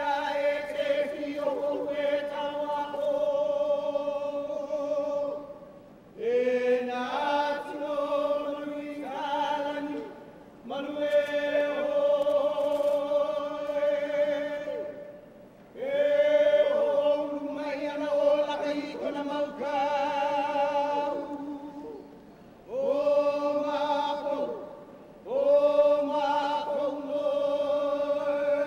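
A group of men chanting a Hawaiian mele in unison for hula kahiko, in long phrases on held, wavering notes, with a short break for breath every four to six seconds.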